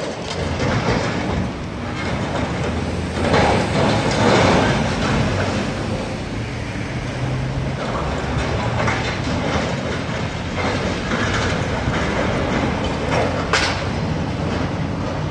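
Tracked demolition excavator working in a heap of corrugated metal sheeting and steel frame: its diesel engine runs steadily under crunching and scraping of metal, loudest about three to five seconds in, with a brief sharp high sound near the end.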